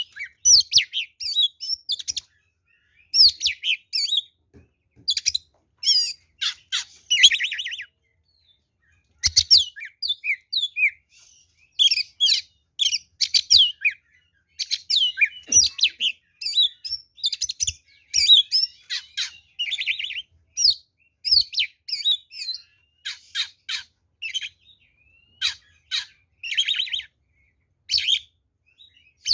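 Oriental magpie-robin (kacer) singing a rapid, varied song of high whistled notes mixed with harsh buzzing rattles, in bursts broken by short pauses and one longer silence about a third of the way in. This is the full-voiced, combative singing that bird-keepers call ngeplong tarung.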